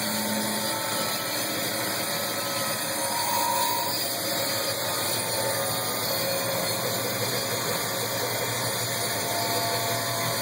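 Powermatic Model 81 vertical wood band saw running steadily.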